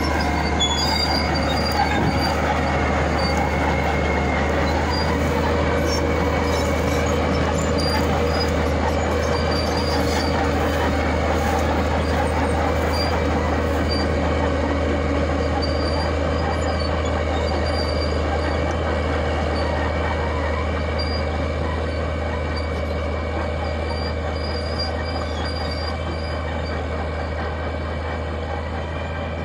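Caterpillar D6D crawler tractor's diesel engine running under steady load while pulling a moldboard plough through the soil: a steady low drone with scattered high metallic squeaks from the steel tracks. It grows gradually fainter over the second half as the machine moves away.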